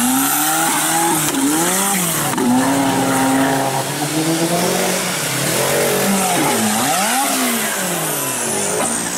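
Off-road buggy engine revving hard as the buggy ploughs through a muddy water pit. The pitch swoops up and down several times, holds high for about a second, and gives a few quick blips near the end.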